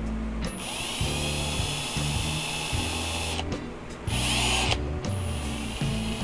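Cordless drill running free with a bit in its chuck: three runs of high whine, the first about 3 seconds long, then a short one and a third near the end, over background music.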